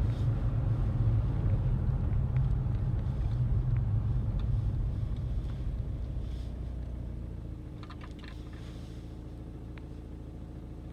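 Car engine and road rumble heard from inside the cabin as the car creeps forward slowly. About seven seconds in, the rumble eases to a quieter, steady running note.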